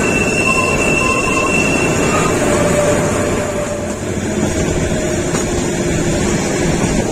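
Kalka–Shimla narrow-gauge toy train running: a loud, steady rumble of wheels and carriage. A few faint, thin tones come and go in the first few seconds.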